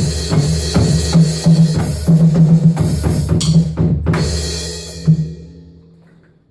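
Drum kit played fast in an improvised run of kick, snare and tom strokes under a cymbal wash, ending on a final hit about five seconds in, after which the drums and cymbals ring out and fade away.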